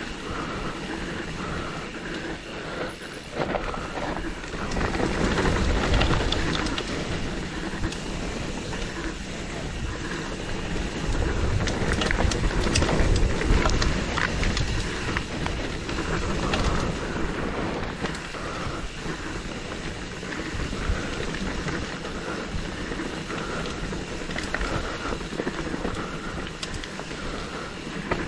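Mountain bike riding down a steep dirt downhill trail: a continuous rush of tyre and wind noise with rattling clicks and knocks from the bike over bumps. It grows louder and heavier over two rougher stretches, about five and twelve seconds in.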